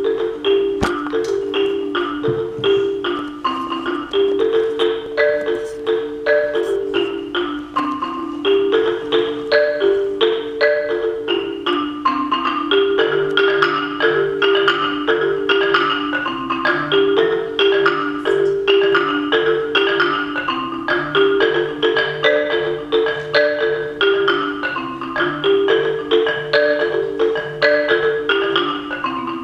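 Solo marimba played with mallets: a quick, repeating pattern of struck notes in the middle register. About thirteen seconds in, a steady pulse of low notes joins underneath.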